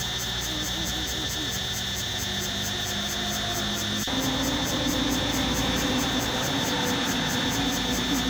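Insects chirring in a steady, evenly pulsing rhythm, with a few short squeaks about a second in. After an abrupt cut about four seconds in, a steady low drone like a distant engine joins and the sound gets a little louder.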